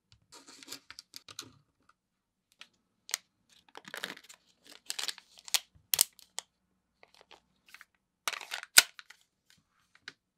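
A plastic packaging pouch crinkling and rustling as it is handled, with irregular crackles and sharp snaps, the sharpest about six and nine seconds in.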